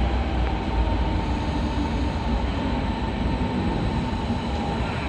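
ODEG Stadler KISS double-deck electric multiple unit pulling slowly into the platform: a steady low rumble of wheels and running gear with a faint steady whine.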